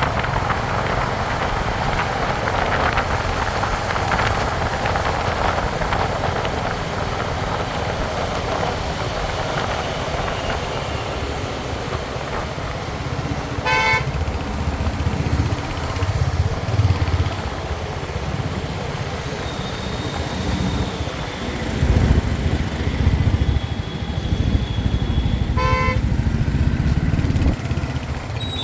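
Royal Enfield Hunter 350's single-cylinder 349 cc engine running, its exhaust thumping steadily. A short horn toot sounds twice, about halfway through and near the end.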